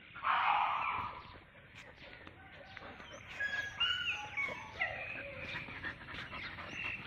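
Thai Ridgebacks and a beagle play-fighting. There is a loud burst of vocalising in the first second, then a run of short, high whines and yips.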